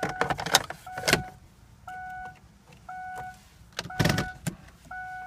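Plastic clicks and knocks of a car's dashboard ashtray being pushed back into place, loudest near the start, about a second in and about four seconds in. Under them, the car's electronic warning chime beeps steadily, a short even tone about once a second.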